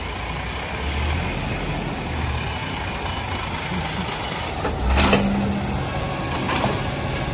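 Side-loading garbage truck's diesel engine running as it draws up to the kerbside bins, with a short, sharp air-brake hiss about five seconds in.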